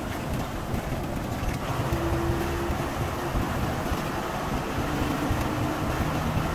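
Steady rumble of a coach's engine and tyre noise on the road, heard from inside the cabin while the bus drives at speed.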